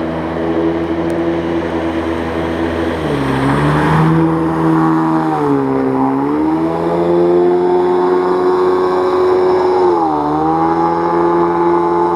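Mercury 25 jet outboard on a Solar 420 jet inflatable tunnel boat running hard up a shallow river. Its steady engine note dips in pitch and comes back up three times.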